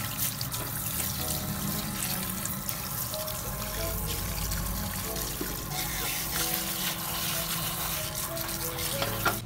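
Tap water running and splashing into a sink as a wig is rinsed under it, over background music with a simple melody. A sharp knock near the end.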